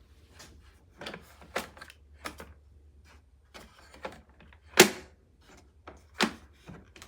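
Clicks and knocks of a plastic coffee maker's parts being handled, a dozen or so irregular taps with one sharper knock about five seconds in and another just after six seconds.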